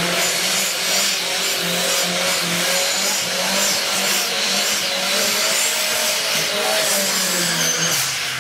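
Burnout by a Plymouth Horizon with a swapped-in Dodge Neon SRT-4 2.4-litre turbocharged four-cylinder, held at high revs with a slightly wavering engine note while its drag slicks spin and squeal on the pavement. The engine drops off near the end.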